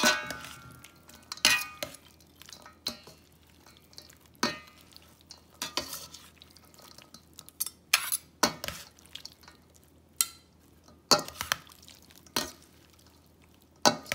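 Two stainless steel serving spoons tossing a dressed sausage salad in a stainless steel mixing bowl. Irregular clinks and scrapes of metal on metal, a dozen or so, some ringing briefly.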